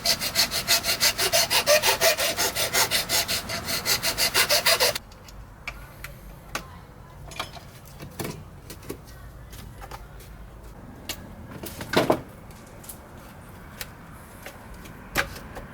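A hand file rasping in quick, even back-and-forth strokes, filing out a hole in a steering wheel or quick-release hub part. It stops about five seconds in, leaving a few light clicks and knocks of handling, the loudest near the end.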